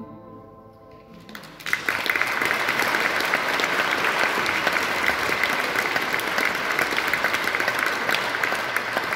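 The last held note of a song fades out, then audience applause breaks out about a second and a half in and goes on steadily, many hands clapping.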